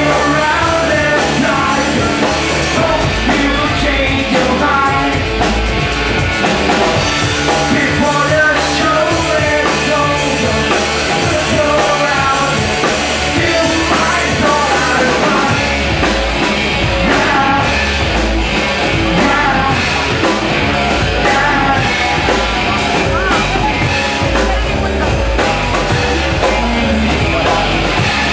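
A rock band playing loud, driving music, with the drummer on a full drum kit and cymbals. The bass end grows heavier about halfway through.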